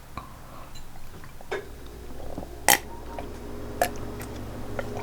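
Close-miked swallowing of gulps of spring water, with a few sharp mouth or bottle clicks, the loudest a little under three seconds in.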